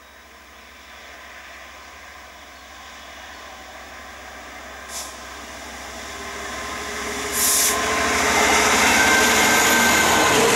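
Class 66 diesel-electric locomotive running light, its two-stroke V12 engine growing steadily louder as it approaches and draws level, with a steady engine tone. A short hiss sounds about halfway through.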